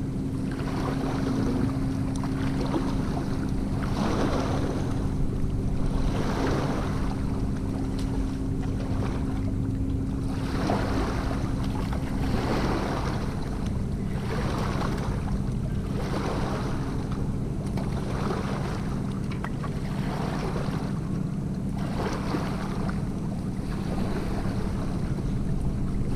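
Small lake waves lapping and washing onto a rocky shore, one wash every second or two, with a steady low hum underneath.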